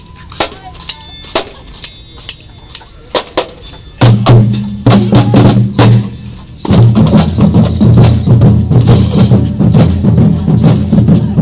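Marching band: snare drums tap out a steady beat, then about four seconds in the full band comes in loud. Sousaphones sound the low notes under the saxophones and clarinets while the drums keep beating.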